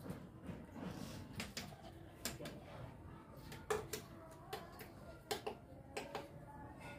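Scattered faint clicks and light taps of hand work with a steel spoon and soft dough on a wooden board as a momo is filled and its wrapper pleated shut.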